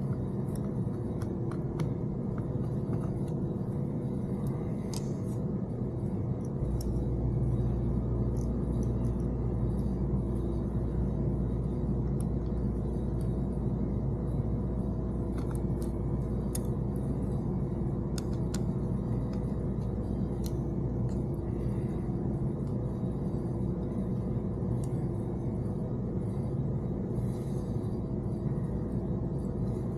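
Steady low hum of workshop background, with a deeper rumble joining about six seconds in, and scattered light clicks and taps of small parts, screws and dash clips being handled during a car radio install.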